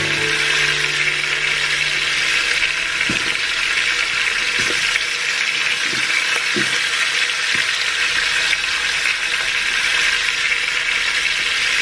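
Food frying in a hot pan, a steady sizzle throughout. Background music fades out in the first couple of seconds.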